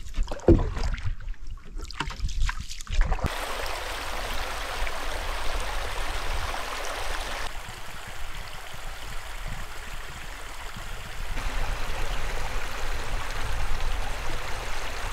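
A canoe being paddled, uneven low knocks and strokes for about three seconds, then the steady rush of a small creek's running water.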